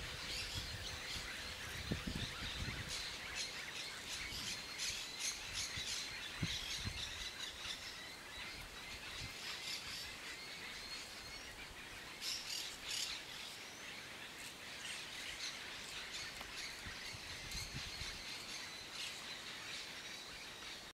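Wild birds chirping and calling in the background: many short, high chirps throughout, over a thin, steady high tone, with a few low thumps in the first few seconds.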